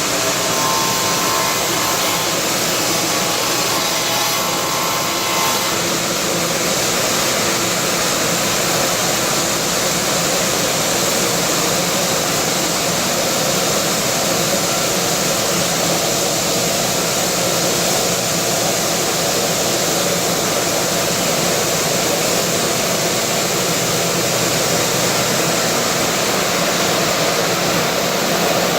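A CNC stone-milling machine cutting granite: a loud, steady, even whirring grind of the spindle and cutter working the stone.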